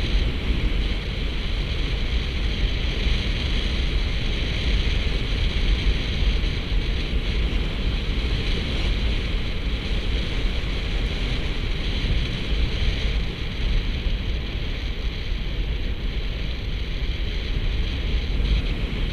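Steady wind rush buffeting the microphone of a camera on a moving bicycle, a low, unbroken rumble.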